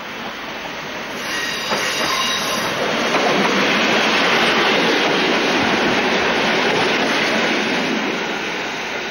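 SJ Y1 diesel railcar passing close by, its engine and wheels on the rails swelling to a peak about three to five seconds in and easing off near the end. A brief high wheel squeal sounds between about one and three seconds in.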